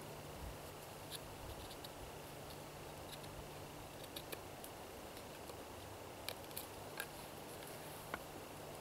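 Knife whittling a wooden pot hook: faint scraping of the blade on the wood, with scattered sharp little clicks of cuts, more of them in the second half.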